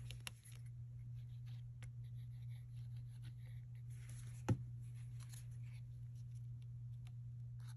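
Faint rustling and light taps of cardstock and chipboard pieces being handled and set down on a card, with one sharp click about four and a half seconds in, over a steady low hum.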